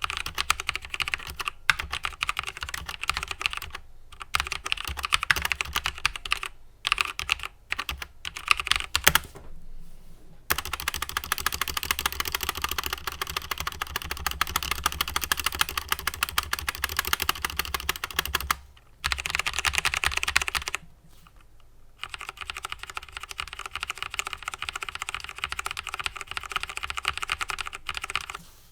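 Typing on a SteelSeries Apex M400 mechanical keyboard with SteelSeries QX1 switches and ABS keycaps: a fast, steady stream of key clicks broken by a few brief pauses.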